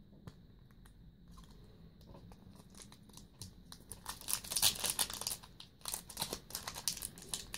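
Foil Yu-Gi-Oh! Magic Ruler booster pack wrapper crinkling as it is handled in the hands. It is quiet at first and grows into a dense crackling rustle from about three and a half seconds in.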